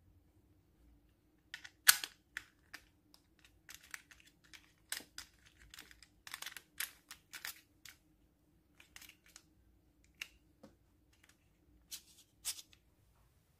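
Hard plastic clicking and clacking as the phone clamp on a flexible octopus tripod is handled, pulled open and let close, in irregular clicks with a sharp clack about two seconds in.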